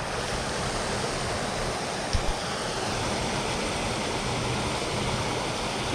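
Creek water rushing steadily over a small rock dam, with a brief knock about two seconds in.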